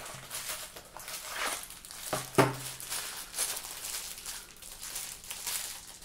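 Small plastic packet of lock installation parts crinkling and crackling as it is handled, with one sharper snap about two and a half seconds in.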